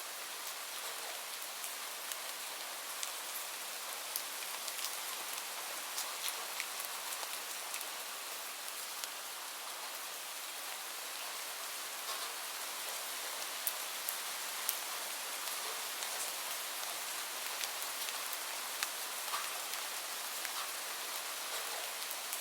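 Steady rain falling, with individual drops pattering in sharp ticks over an even hiss.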